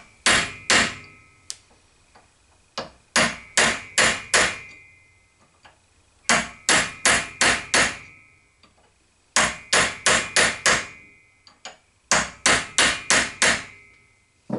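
Hammer tapping a brass drift to drive a spindle bearing's top race down onto a milling machine's quill spindle, seating the bearing before preload. Groups of three to six quick sharp metal-on-metal taps come about every three seconds, each group followed by a faint ring.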